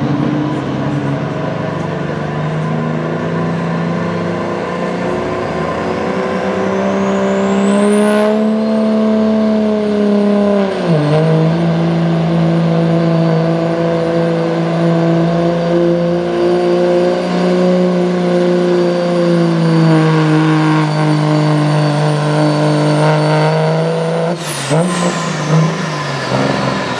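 Dodge Ram dually's 5.9-litre Cummins turbo-diesel pulling a sled at full throttle: the engine runs hard under load while the turbocharger's whistle climbs steeply over a few seconds and then holds high. The engine pitch dips once about eleven seconds in, and near the end the whistle and the engine fall away suddenly as the throttle is let off at the end of the pull.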